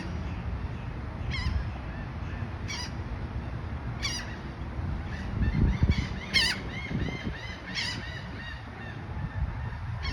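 Geese honking: a series of short calls, one about every second and a half, over a low rumble.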